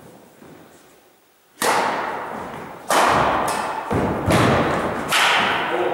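Badminton rackets striking the shuttlecock in a rally: several sharp smacks about a second apart, starting a little under two seconds in, each ringing out in the echoing gym.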